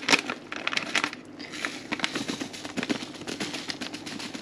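Crinkling and rustling of a foil seasoning packet as it is handled and tipped over a cauldron, with the crackle loudest at the start.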